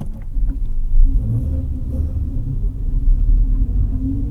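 Scion FR-S's flat-four engine running at low revs, heard from inside the cabin as a steady low rumble.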